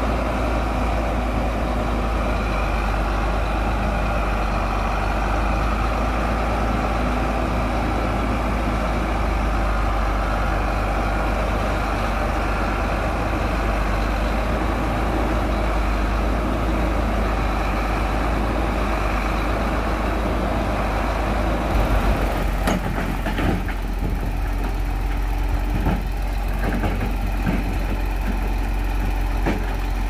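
Heavy diesel earthmoving machinery running steadily with a deep engine rumble. About two-thirds of the way through, the hissing background drops away and irregular knocks and clatter begin.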